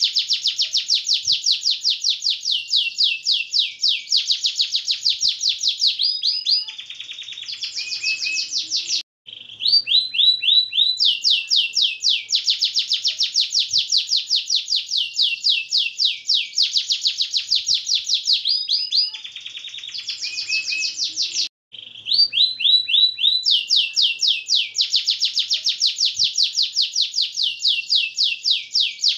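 Domestic canary singing a long rolling song: fast, high trills of rapidly repeated notes lasting several seconds each, broken by short lower warbling passages. The same sequence repeats about every twelve seconds, with two brief pauses.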